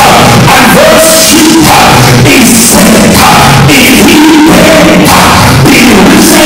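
Loud amplified vocal music: a man singing into a handheld microphone through a PA, with musical accompaniment.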